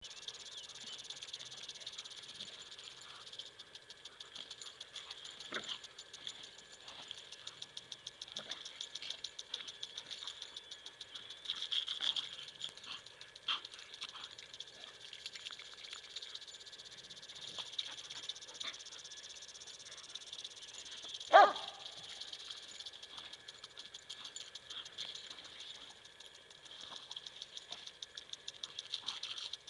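A dog barks once, sharply, about two-thirds of the way through, over a steady fast ticking and hiss in the background, with a few faint knocks.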